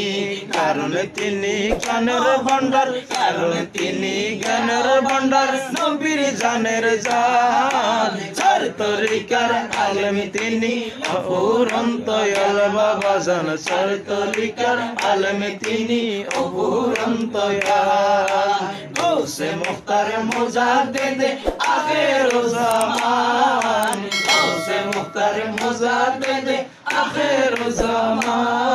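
A man singing a Bengali devotional manqabat without instruments, with hand claps keeping time through the song.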